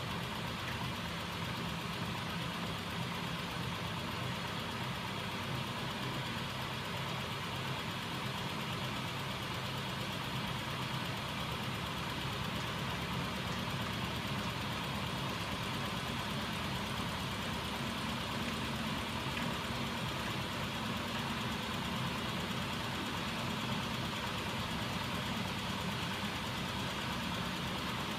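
Homemade magnet-driven crankshaft machine running steadily, its flywheel and crankshaft turned by a small 12-volt DC electric motor: a continuous, even mechanical whir.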